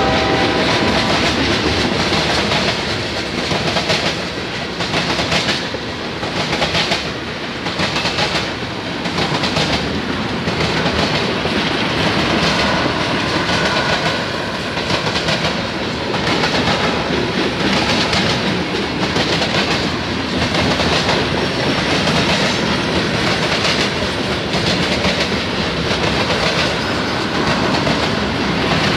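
Tank cars of a long freight train rolling past, a steady loud rumble of steel wheels on rail with a regular clickety-clack as the wheels cross rail joints.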